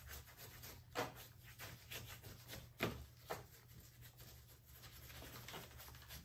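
Cheap 1-inch disposable paint brush dabbing and scrubbing stain onto rough plaster rock: a run of quiet brush strokes, with two louder taps about one and three seconds in.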